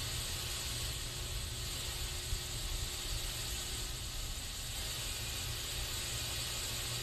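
Aerosol spray can hissing continuously without a break, a steady high hiss with a faint low rumble underneath.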